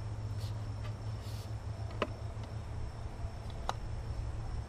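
Two light, sharp knocks of plastic PVC drain pipe against its fittings as a freshly cut piece is test-fitted. Under them run a steady low hum and a steady high insect trill.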